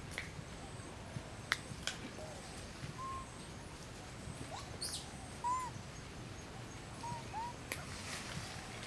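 A few short, faint chirping calls a second or two apart over quiet outdoor ambience, with scattered light clicks and rustles.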